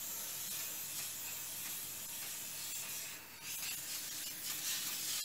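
Aerosol cooking-oil spray hissing steadily over the fish, with a brief break about three seconds in before the spraying resumes.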